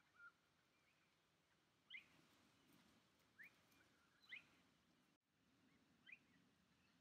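Faint, short rising bird chirps, about five of them a second or two apart, over near silence; the background cuts out for a moment about five seconds in.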